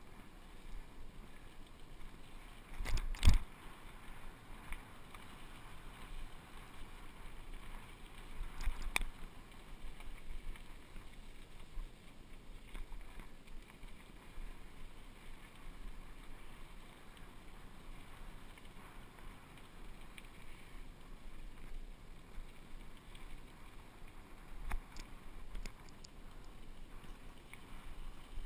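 Steady rushing of a Fuji hardtail mountain bike rolling fast down a dirt trail, with sharp knocks and rattles as the bike jolts over bumps and rocks, the loudest about three seconds in.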